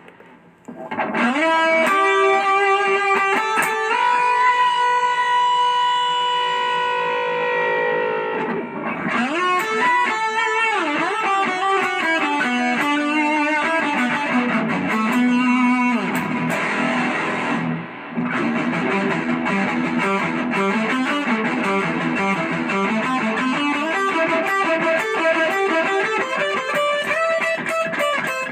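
Electric guitar played through a BOSS OD-20 Drive Zone overdrive pedal with a driven tone. After a short pause it rings out a long note with vibrato, then plays running single-note lead lines with a brief break partway through.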